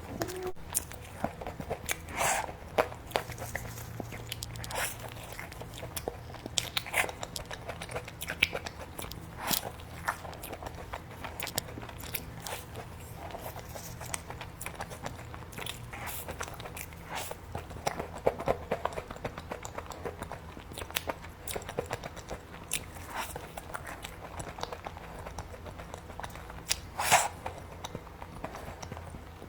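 Close-miked mukbang eating of a cookies-and-cream treat: irregular crisp bites and crunches with chewing between them, the loudest crunches about two seconds in and near the end.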